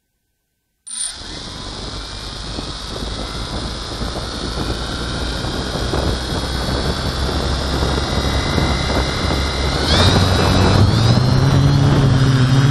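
Quadcopter's electric motors and propellers, heard close through the onboard action camera, starting abruptly about a second in with a steady high whine that grows louder; about ten seconds in the pitch rises and the sound gets stronger as the throttle comes up for takeoff.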